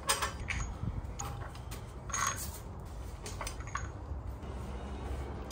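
Steel four-way cross lug wrench working the wheel's lug bolts loose: a series of sharp metallic clinks, some with a short high ring, loudest about two seconds in.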